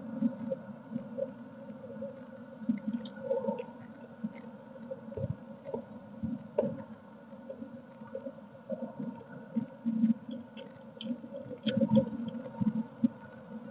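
Blue tit moving about inside a wooden nest box, its feet scratching and tapping on the floor with small rustles as it turns and settles. The taps and scrapes come irregularly over a steady hum.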